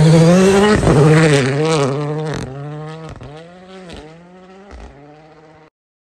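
Ford Fiesta rally car's engine at high revs as the car powers through a corner on snow. The note rises, then fades as the car drives away, with the revs dipping and picking up again several times. The sound cuts off abruptly near the end.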